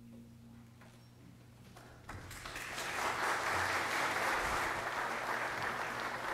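Congregation applauding. After a quiet start, the clapping breaks out about two seconds in, swells within a second and then holds steady.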